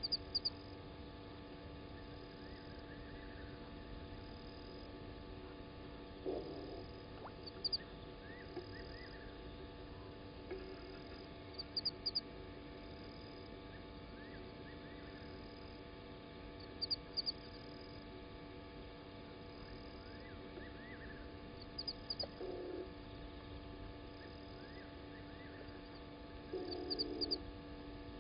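Night-time bush ambience over a steady hum: short high chirps in groups of two to four, repeating every four to five seconds, with fainter rising calls and a few brief lower calls between them.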